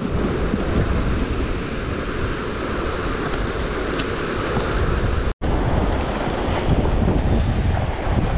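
Strong wind buffeting the microphone over the wash of breaking surf. The sound drops out for an instant a little over five seconds in, then the wind and surf go on.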